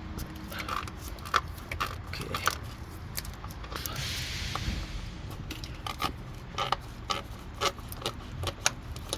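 Hand ratchet and socket working out lower oil pan bolts: irregular sharp metallic clicks and clinks, with a brief rattling rush about four seconds in.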